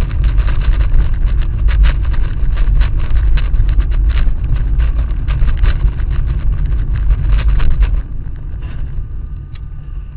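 Vehicle on the move: a loud, heavy low rumble laced with rapid clicks and knocks, which drops off abruptly to a quieter rumble about eight seconds in.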